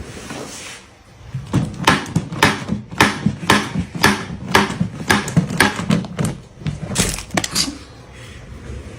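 A rapid series of sharp knocks or taps, several a second, starting about a second and a half in and stopping near the end.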